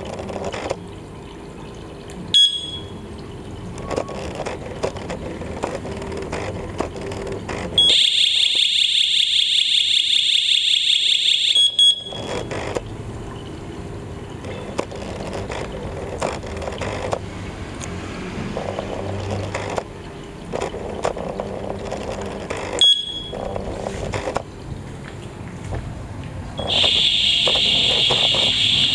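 Chuango G3 alarm system siren sounding a loud, steady, high-pitched electronic tone for about four seconds, cutting off abruptly, then starting again near the end. Single short beeps at the same pitch come about two seconds in and again some twenty seconds later, with handling clatter in between.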